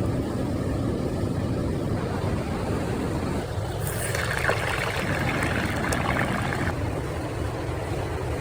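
Waterfall rushing steadily, with wind buffeting the microphone; a brighter hiss joins for about three seconds in the middle.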